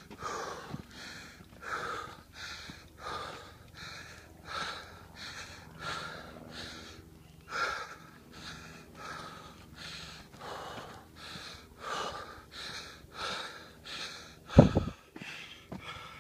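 A hiker breathing hard from the exertion of a steep uphill climb: loud, even puffs of breath, about one and a half a second. A single loud thump on the microphone comes near the end.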